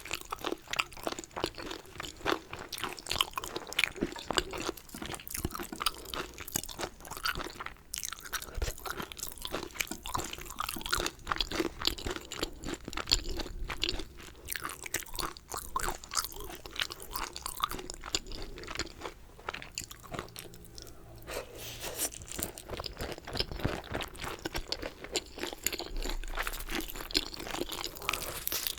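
Close-miked eating sounds: chewing and crunching through dumplings and tteokbokki, a dense run of small wet clicks and crunches that thins briefly about two-thirds of the way through.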